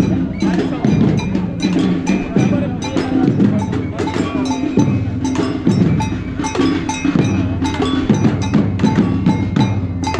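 Crowd of demonstrators banging drums and metal percussion in a loose, irregular clatter, with many sharp strikes and ringing metallic clanks.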